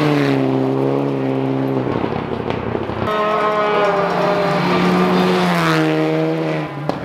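Rally car engines at high revs, each holding a steady note and then dropping in pitch as the car goes past, with a change to another car about three seconds in.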